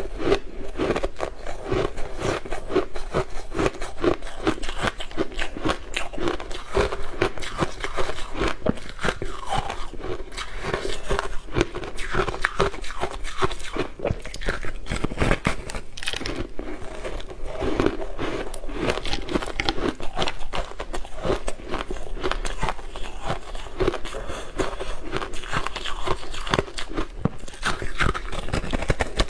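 Close-up crunching of a frosty slab of frozen ice as it is bitten and chewed: a dense, continuous run of rapid crackling crunches.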